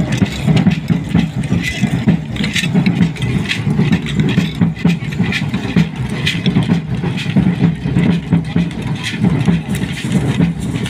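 Music for a matachines dance: a low brass line from a sousaphone over a pulsing beat, with the clatter and clicks of the dancers' rattles, reed-fringed costumes and steps.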